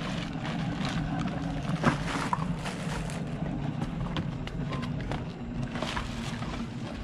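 Groceries and plastic water jugs being handled, with scattered rustles and light knocks over a steady low hum.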